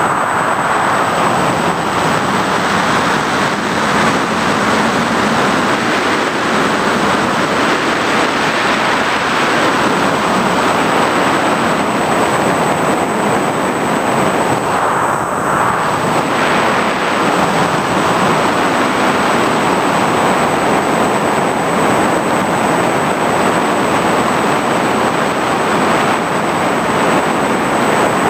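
FPV drone in flight: a steady, loud rush of its motors, propellers and wind, with a thin high whine held on top.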